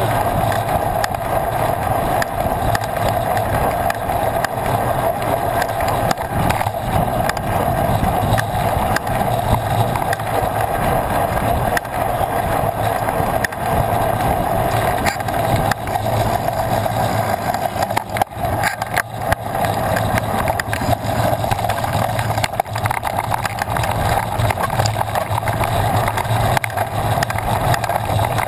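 Wind rushing over a bike-mounted camera's microphone while a mountain bike rolls along asphalt, its tyres humming on the pavement; a steady noise that dips briefly about two-thirds of the way through.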